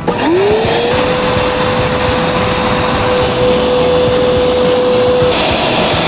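Motor of a HIKO Multi Archer 4-in-1 pressure washer and wet-dry vacuum switched on in vacuum mode: a whine rising in pitch over about a second as it spins up, then holding steady. About five seconds in, the steady whine stops and a hissier running sound takes over.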